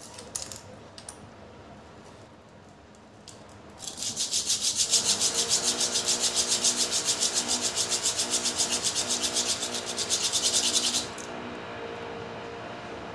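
Bicycle disc brake pad rubbed back and forth on sandpaper in quick, even strokes, several a second, starting about four seconds in and stopping about eleven seconds in. The pad's friction face is being sanded down to cure squeaky disc brakes.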